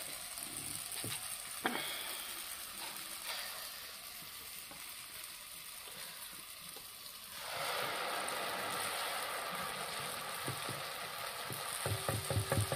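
Hot oil sizzling in a kadai as batter fritters deep-fry. About seven and a half seconds in, the sizzle jumps louder as the batter-coated flower mould goes into the oil, and near the end come a few quick knocks as the mould is shaken to free the fritter.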